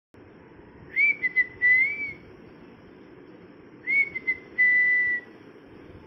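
Two whistled phrases about three seconds apart, each starting with a quick rise and a few short breaks and ending on a held high note.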